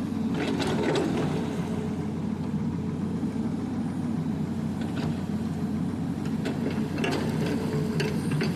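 Excavator's diesel engine running steadily under hydraulic working load, with a few short knocks from the machine's bucket and arm during trimming.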